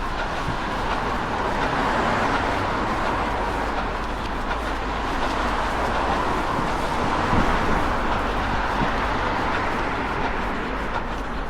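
Road traffic passing, its noise swelling and fading twice, over a steady low wind rumble on the microphone.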